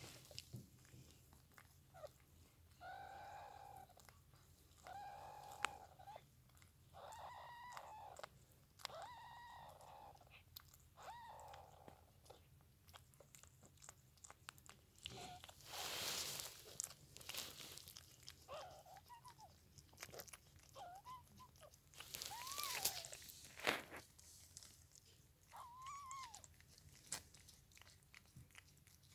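A kitten meowing repeatedly in short, high calls, with two brief rustling noises in between.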